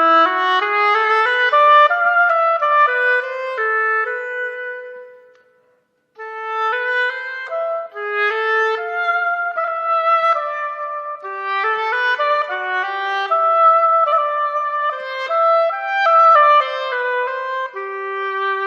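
A solo wind instrument plays a slow melody of held, reedy notes. The sound dies away about five seconds in, and a second phrase starts after a short pause.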